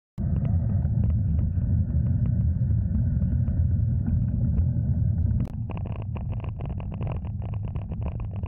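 Wind buffeting the microphone of a bicycle-mounted action camera while riding, a heavy, steady low rumble mixed with tyre and road noise. About five seconds in the sound cuts to a quieter rumble with a rapid run of faint ticks and rattles.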